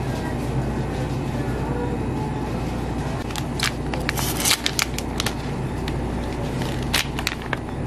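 Plastic film wrapper of a packaged cheese sausage crinkling and crackling as it is peeled open, in a cluster of sharp crackles about three seconds in and a few more near the end, over a steady low background hum.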